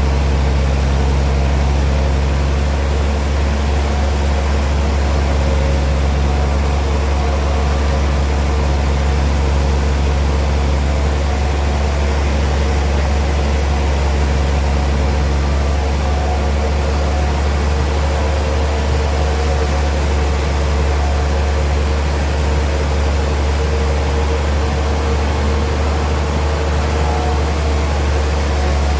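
Sawmill machinery running with a steady low drone and a few held tones, unchanging in level, with no cutting strokes or impacts.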